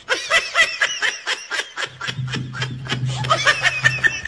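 A person laughing in a quick string of short bursts, about four or five a second. A low steady hum comes in about two seconds in.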